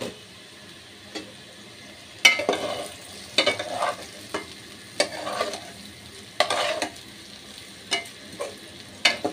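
A metal spatula stirring and turning cauliflower and potato pieces in a metal pan, scraping and clattering against the pan about once a second from about two seconds in. Underneath is a faint sizzle as the steamed vegetables start to fry with the lid off.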